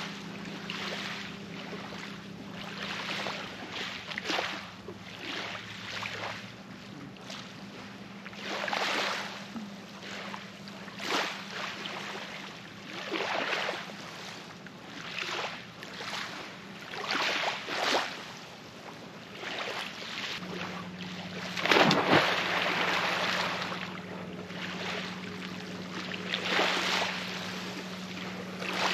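Small lake waves lapping against a log and the pebbly shore in repeated soft washes every second or two. About three-quarters of the way in comes a louder splash, a person jumping off the far end of the log into the lake.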